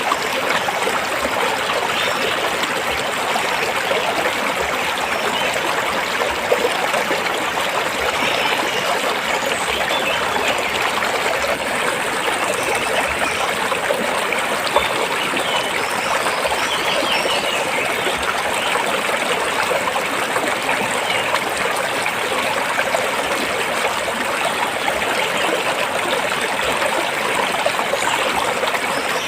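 A rocky stream flowing steadily over and between stones: an even, unbroken rush of water.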